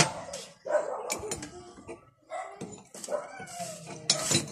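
A dog barking several times in short separate barks, with sharp metal clinks of a wrench on the control valve about four seconds in.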